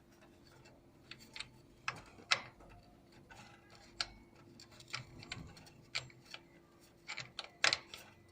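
Irregular light clicks and taps of metal tools and parts being handled in a car's engine bay, one every second or so, over a faint steady hum.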